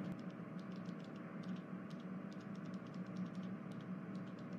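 Faint steady hum with a few light ticks scattered through it.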